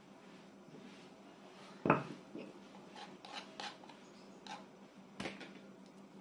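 Kitchenware clinking and knocking: one sharp knock about two seconds in, then several lighter clicks, over a faint steady hum.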